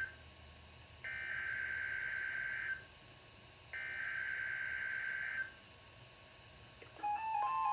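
NOAA Weather Radio SAME alert header: digital data bursts, each a harsh warbling buzz of about a second and a half with a pause of about a second between, two of them here. Near the end a steady alert tone starts with a repeating chime-like melody over it.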